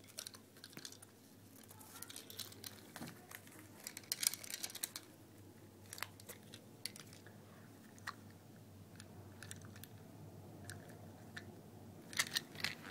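Faint handling of plastic Mega Bloks pieces and their packaging: scattered sharp clicks and light crinkling, with a quick cluster of clicks near the end.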